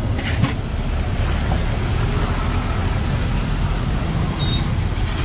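Steady low background rumble, with a single sharp click about half a second in.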